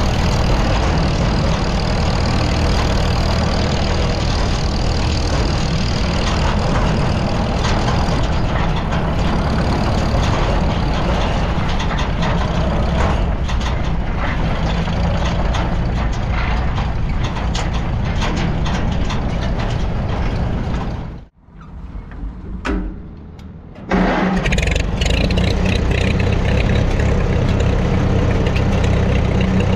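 Vintage Farmall tractor's four-cylinder engine running steadily as the tractor drives along. The sound drops away abruptly about two-thirds of the way through and comes back at full level some two and a half seconds later.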